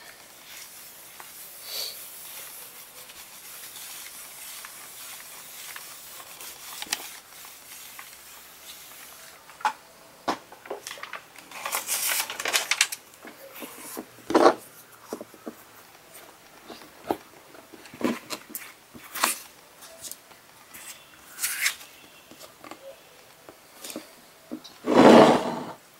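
Rubbing and handling of craft materials: a household iron sliding over paper to heat EVA foam, as a faint steady hiss, then hands pressing and rubbing the warm foam over a plastic modeller, with scattered clicks and knocks. A louder rustling rub comes near the end.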